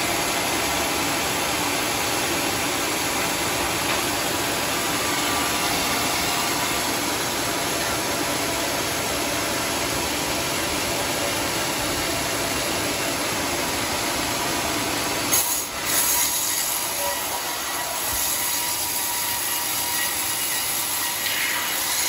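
Sawmill band saw cutting lengthwise through an old coconut-palm (glugu) log: a steady, dense sawing noise from the blade and mill machinery, with a brief louder surge about fifteen seconds in.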